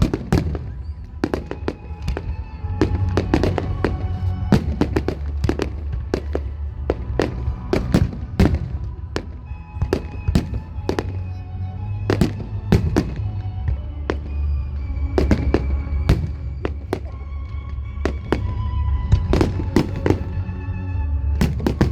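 Fireworks display: a rapid, continuous series of bangs and cracks, several a second, over music with held notes and a steady bass.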